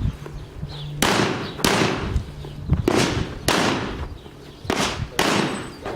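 Pistol shots fired in quick pairs: six shots as three double taps, the two shots of each pair about half a second apart, each with a short echoing tail.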